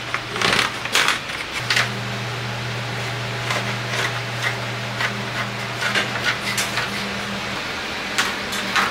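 Scattered sharp clicks and knocks of hardwood strips and a one-handed bar clamp being handled and tightened on a wooden frame, with a cluster near the start and another near the end. Underneath is the steady hum of an electric fan.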